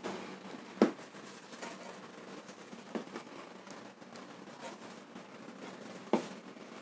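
A few sharp taps and clicks from skewered tofu-dregs sate being handled on a wire grill mesh as pieces are pulled off the wooden skewers: the loudest tap about a second in, others near three and six seconds, with fainter ticks between.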